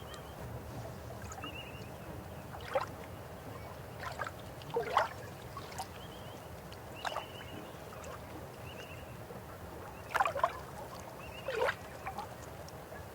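River water running with a steady rush, broken by irregular gurgles and plops about every one to three seconds, the loudest near the start of the second half. A few faint short trills sound higher up.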